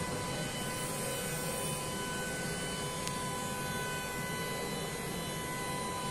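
Steady machinery hum in an aircraft maintenance hangar, with a thin, constant high whine over it.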